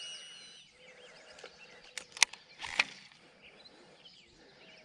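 Quiet lakeside ambience with faint bird calls, and two sharp clicks about two seconds in.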